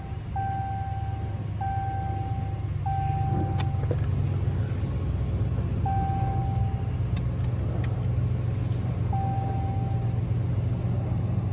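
Pickup truck's engine idling with a steady low hum, while a dashboard warning chime sounds a short single-pitched beep, repeating about every second and a quarter at first, then twice more at longer gaps.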